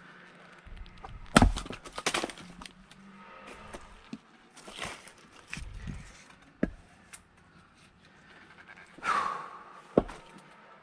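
An axe blow about a second and a half in, the loudest sound, splits a log with a crack, and the wood splinters for a moment after. Then come a few lighter knocks and thuds of wood, with a sharp knock near the end.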